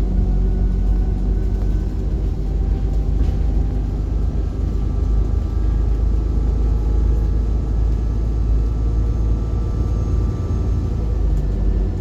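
Alexander Dennis Enviro bus running: a steady low engine and road rumble, with faint thin whining tones above it that fade out near the end.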